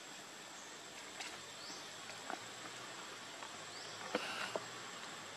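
Steady insect buzz with a thin high whine, two short rising chirps, and a few sharp clicks, the loudest about four seconds in, as macaques crack and chew peanuts.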